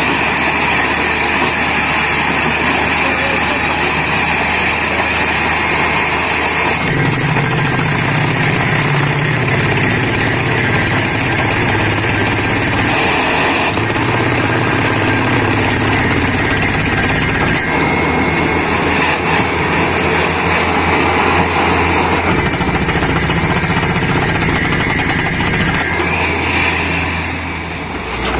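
Borewell drilling rig at work: the rig's engine and air compressor run while a down-the-hole air hammer drives the bit with rapid hammering. The tone shifts several times, and the level dips briefly near the end.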